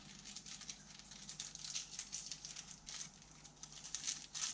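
Faint, irregular clicks and scratches of small plastic parts being handled: a battery being fitted into the battery compartment of a welding helmet's auto-darkening filter cartridge.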